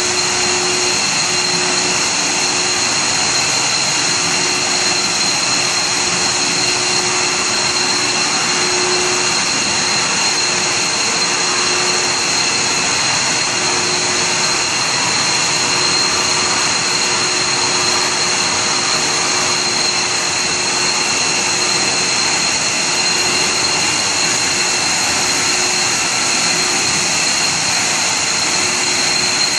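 Steady running noise of an HDPE silicon-core pipe extrusion line: a continuous machine hiss with a steady high whine and a fainter low hum, unchanging throughout.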